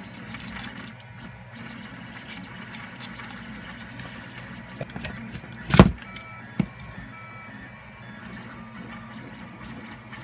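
Light clicks and knocks of 3D-printed plastic parts being handled and screwed together, with one loud knock about six seconds in and a smaller one just after. A steady low hum runs underneath.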